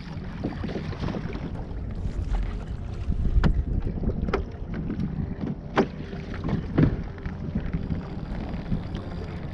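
Wind rumbling on the microphone while fishing from a small boat on open water, with four or so sharp knocks and clicks as the fishing rod and gear are handled.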